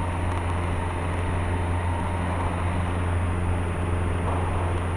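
Steady drone of a Cessna 150's Continental O-200 four-cylinder engine and two-blade propeller heard from inside the cabin in flight, a constant low hum over an even rushing hiss.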